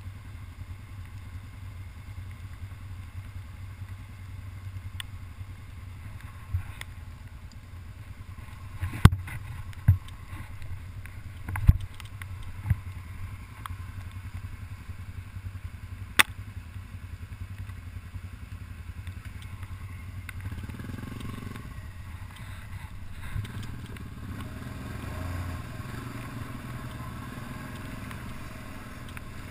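ATV engine running at trail speed, a steady low drone that picks up somewhat about two-thirds of the way through. Several sharp knocks and clatters come a second or two apart, from the machine jolting over the rough trail.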